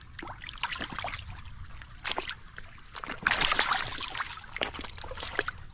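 Water splashing and trickling in irregular bursts, loudest a little past the middle.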